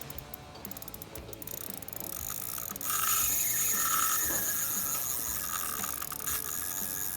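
Fishing reel drag clicking as a hooked arapaima pulls line off the reel. The clicks are rapid at first, then grow louder into a steady buzz about three seconds in.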